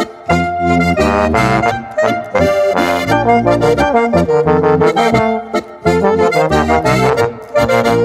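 Boarischer, a Bavarian folk dance tune, played by an accordion-led trio, with a steady bass line under the melody.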